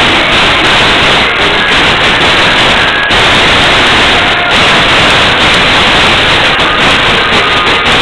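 Karaoke music recorded so loud that the microphone is overloaded, heard as a heavily distorted, hissing wall of sound with little clear melody.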